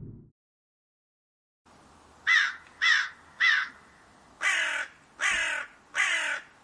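A crow cawing six times: three short caws about half a second apart, then three longer, drawn-out caws.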